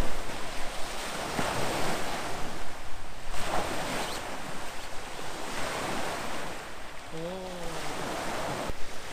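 Sea surf washing onto the shore, the noise swelling and fading in waves, with wind on the microphone. A short hum of a man's voice about seven seconds in.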